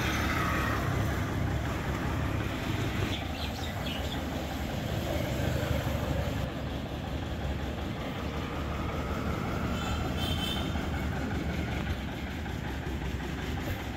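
Steady rumble of road traffic going by, with a brief high tone about ten seconds in.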